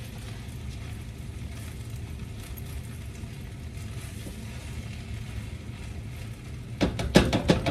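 Kimchi fried rice being stirred in a wok over a gas burner: faint sizzling over a steady low hum, then near the end a quick run of sharp clacks as the spatula knocks against the wok.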